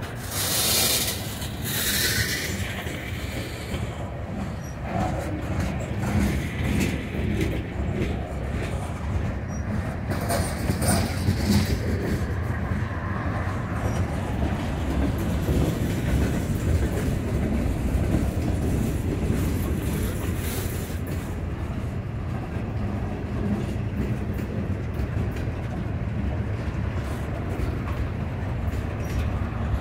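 Freight train cars rolling past at close range: a steady low rumble with irregular wheel clatter over the rail joints. A brief high hiss rides over it in the first few seconds.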